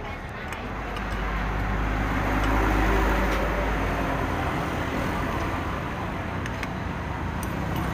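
A motor vehicle passing on the road, its engine and tyre noise swelling to a peak about three seconds in and then fading. A few faint clicks of a spoon and fork on the plate sound through it.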